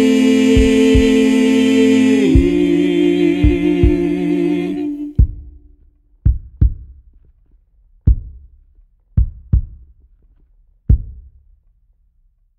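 A small group of singers holds the final chord of an a cappella song. The chord shifts lower about two seconds in and dies away about five seconds in. Deep thumps sound under the singing, then seven more follow alone, singly and in pairs, over the last seven seconds.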